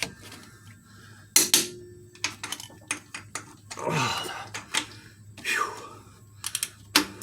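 Torque wrench working the Jeep 4.0 cylinder head bolts up to 110 foot-pounds on the final pass: a scatter of sharp metallic clicks and clinks from the wrench and socket.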